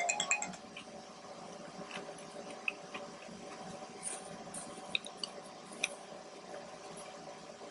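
A person chewing soft food, ful medames with pita, close to the microphone: faint wet mouth sounds with a few small clicks.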